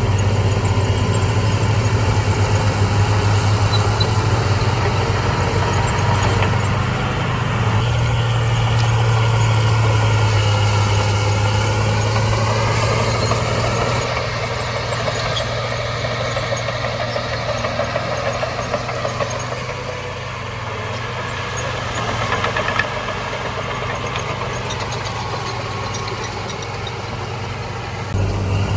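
Heavy earthmoving machine's diesel engine running with a deep, steady drone; its pitch rises and falls about halfway through.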